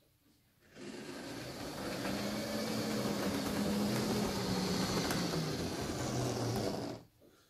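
Model diesel locomotive (a Class 66) running along model railway track on a test run over freshly relaid track: a steady motor hum with wheel rumble on the rails. It starts just under a second in, the hum drops slightly near the end, and it stops suddenly about seven seconds in.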